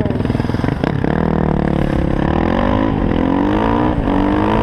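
Yamaha WR450F supermoto's single-cylinder four-stroke engine heard on board, pulsing at low revs, then pulling away after a sharp click about a second in. Its pitch climbs and drops back at gear changes around three and four seconds in.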